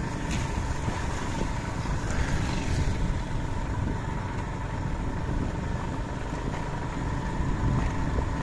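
Motor scooter running at a steady cruising speed, a low rumble with a thin steady whine above it.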